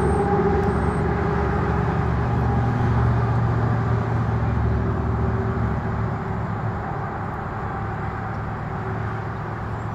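Steady low hum of a motor vehicle running, with a few held tones, slowly growing fainter over the second half.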